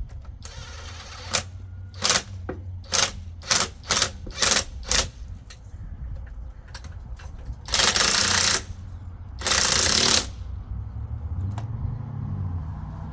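Impact wrench on lug nuts, fired in a string of short bursts and then run twice for about a second each.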